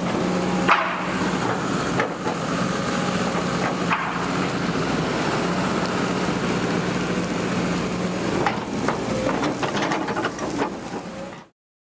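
Heavy excavator engine running at a steady hum, with scattered metallic clanks and knocks from the bucket and work. The sound cuts off abruptly near the end.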